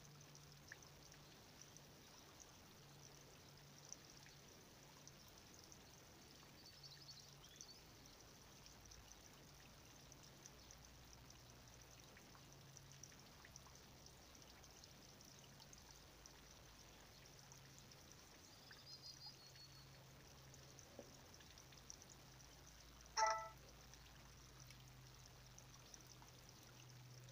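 Near silence: a faint steady outdoor hiss with a low hum and a few faint high chirps, broken near the end by one short, louder pitched blip.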